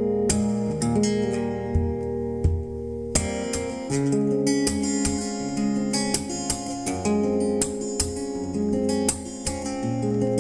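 Background music led by acoustic guitar: a run of plucked notes and strummed chords.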